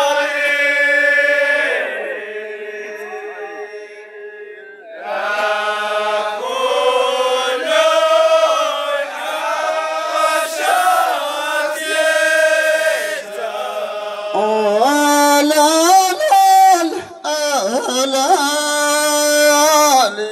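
A men's chorus of Amazigh Ahwach singers chanting a refrain with long held notes. The chant fades out about two seconds in and comes back in about five seconds in.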